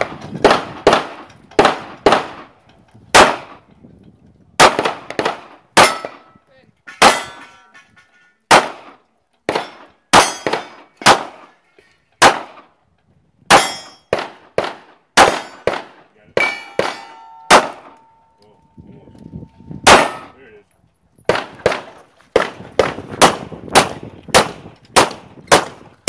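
Pistol fired at steel targets in quick pairs and short strings, with brief pauses between strings. The steel plates answer hits with a metallic clang and a short ring.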